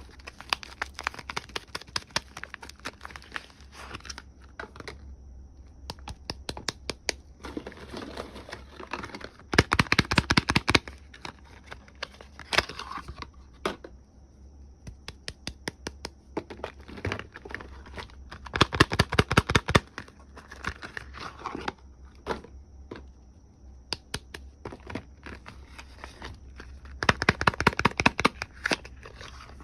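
Soap packaging being unwrapped by hand: crinkling and tearing of the wrapping, with short clicks throughout. Three loud bursts of fast clicking or tapping come about nine seconds apart.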